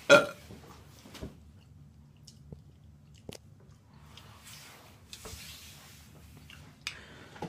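Close-miked chewing and lip smacking of someone eating chicken, with scattered small mouth clicks. A short loud sound comes right at the start.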